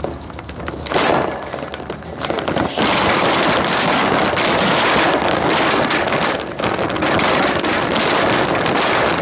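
Wire shopping cart rattling as it is pushed over parking-lot asphalt: the metal basket and caster wheels clatter continuously. There is a sharp jolt about a second in, and the rattle gets louder and steady from about three seconds in.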